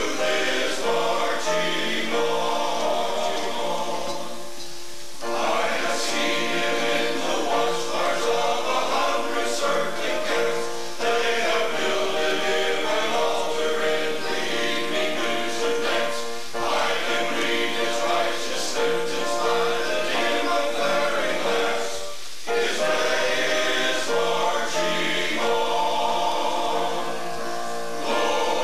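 Men's choir singing a sacred song in long held phrases, with brief pauses for breath between them.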